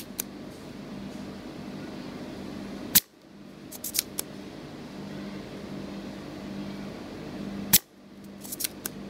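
Spring-loaded desoldering pump (solder sucker) firing twice, about 3 seconds in and near the end: each release is a sharp, loud snap, followed about a second later by a few lighter clicks as it is handled and re-cocked. The pump is sucking molten solder out of a potentiometer's pins on a two-layer circuit board. A steady low hum runs underneath.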